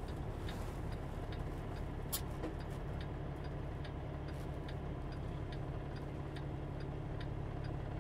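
Semi-truck's diesel engine running low and steady, heard from inside the cab, with a turn signal clicking evenly at about three clicks a second.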